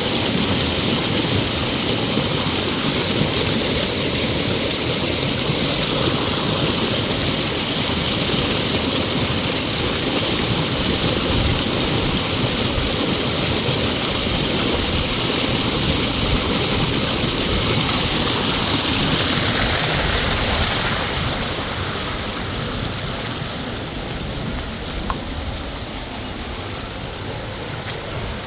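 River water rushing steadily, quieter from about two-thirds of the way in.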